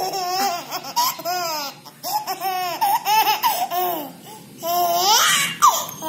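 A baby laughing hard, in repeated bursts of giggles with short breaths between them.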